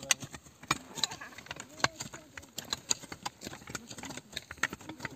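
Several hand hoes chopping into soil, many sharp irregular strikes overlapping from workers hoeing side by side, with faint voices in the background.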